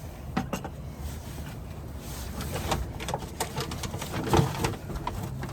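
Beer cans and cardboard packaging being handled and lifted out of a box: scattered light knocks, clicks and rustles.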